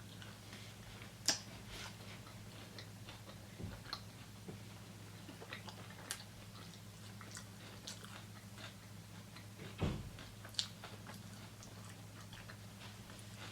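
Close-miked chewing and mouth sounds of someone eating a cheesesteak sandwich: scattered small wet clicks, with a couple of sharper clicks and one low thud, over a faint steady low hum.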